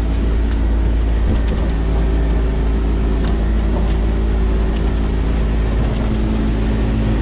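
Evinrude outboard motor running steadily at speed, about 3,000 RPM, with the rush of the boat over the water. The motor has a suspected fuel-line leak that makes it bog down after a few minutes at these revs.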